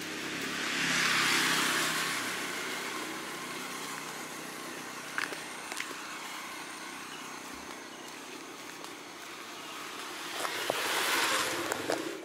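Two vehicles passing on a wet road, their tyres hissing: one swells and fades about a second in, the other builds near the end.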